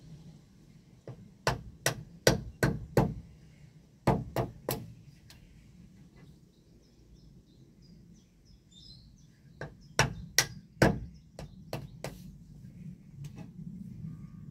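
Wooden mallet striking a chisel held against a wooden staff, in bursts of quick knocks about two or three a second: a run of six, then three, then a longer run near the end with a few lighter taps.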